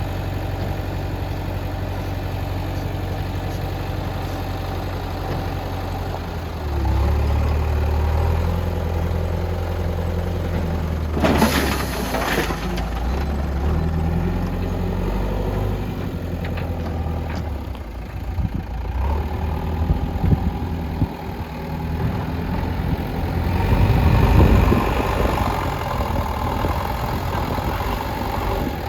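JCB backhoe loader's diesel engine running and changing revs as the front bucket works soil, with a loud rushing burst about eleven seconds in, a few sharp knocks a little later, and a louder stretch near the end.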